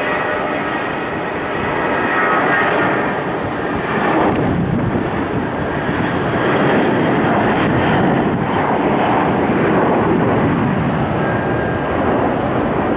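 Airbus A320-232's twin IAE V2500 turbofans at takeoff thrust as the airliner accelerates down the runway and lifts off. A whine of several high tones at first gives way, about four seconds in, to loud, steady jet noise.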